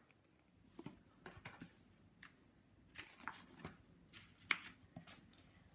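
Faint rustling and scattered soft ticks of a picture book's paper pages being opened and turned by hand.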